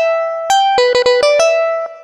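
Instrumental music: a plucked-string melody played one note at a time, about four quick notes a second, each struck sharply and then dying away.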